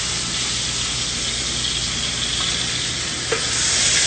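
Bone-in pork loin searing in its own melted fat in a pan: a steady sizzle that swells louder near the end, with one short knock a little after three seconds in.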